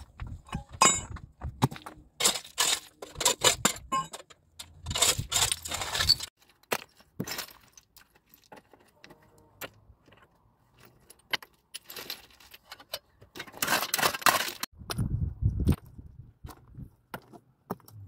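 Loose stone chips and rubble clinking and scraping in several bursts, with a quieter stretch in the middle, as they are cleared by hand and stepped on.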